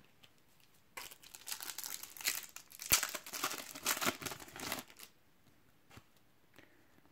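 Foil Panini trading-card packet crinkling as it is torn open, with one sharp snap about three seconds in. The crackle dies away about five seconds in, leaving a few faint ticks.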